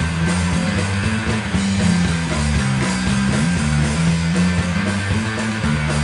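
Rock band playing live with guitars, over a bass line that moves in steps from note to note.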